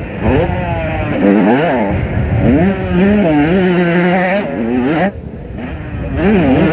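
Motocross bike engines revving hard as riders take a jump, the pitch rising and falling with the throttle and holding steady for a while. About five seconds in there is a brief lull, then another bike revs past.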